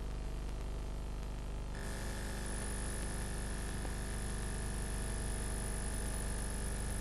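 Steady hum and hiss of an old videotape recording, with no music or voice. About two seconds in, the hiss brightens and a steady high whine joins it.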